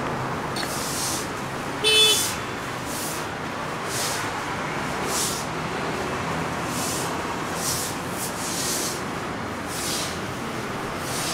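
Steady street traffic noise with hissing swells every second or so, and a short horn toot about two seconds in.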